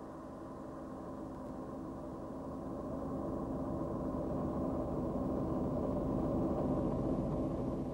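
Electronic drone made of many held tones stacked together, with a gong-like ring. It swells steadily louder and begins to fall away at the very end.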